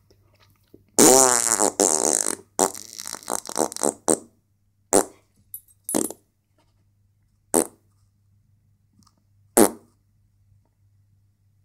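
Fart sounds. A long, loud, sputtering fart starts about a second in and lasts about three seconds, breaking up into a rapid rattle of short pulses. Then come four short single blasts, one to two seconds apart.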